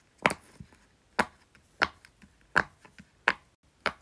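Round silicone Pop-It fidget toy popping bubble by bubble on its loud side: about six short, sharp pops, each well under a second after the last.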